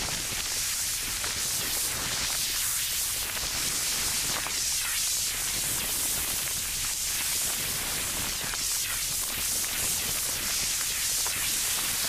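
Grapes sizzling inside a running microwave oven: a steady hiss with a few faint crackles, as steam blows out of their stem holes and splits their skins.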